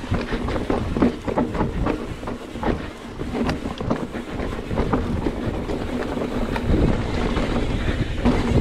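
Mountain bike descending a rough dirt trail at speed: wind rushing over the microphone and tyres rumbling over the dirt, with frequent sharp rattles and knocks from the bike as it hits bumps.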